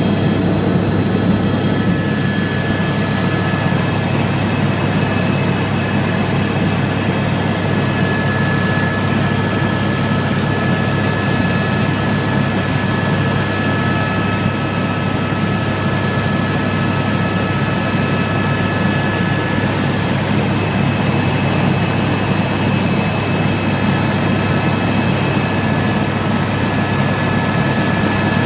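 Helicopter cabin noise in flight: a steady low drone of rotor and engine with several thin, steady high whines on top.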